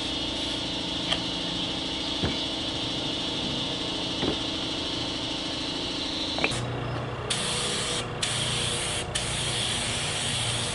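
Aerosol spray can of adhesion promoter hissing steadily for about six seconds. Then a compressed-air paint spray gun hisses, stopping briefly a few times as the trigger is let off.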